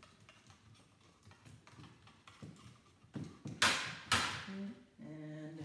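A dehumidifier's fan motor assembly being worked open by hand. There are light clicks and taps of metal and plastic parts, then two short harsh scraping or tearing noises about half a second apart, and a brief hum of a man's voice near the end.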